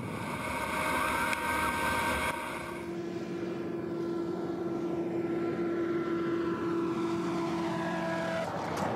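Engine and ducted propeller of a homemade flying hovercraft running at speed, a steady propeller drone. The sound changes about two and a half seconds in, then holds steady.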